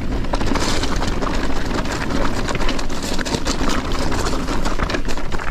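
Mountain bike rattling over a rocky track on a descent: many quick small knocks from tyres and frame, over a steady low rumble.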